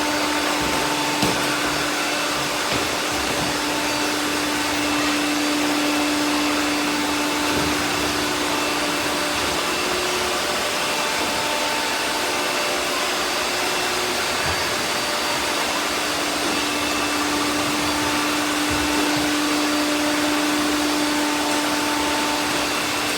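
Several robot vacuum cleaners running together: a steady whirring with a steady hum and a few faint knocks.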